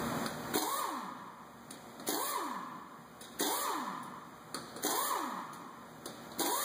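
Power wrench spinning the lug nuts on a car's front wheel: five short whirs about a second and a half apart, each starting sharply and falling in pitch as the tool winds down, one for each nut.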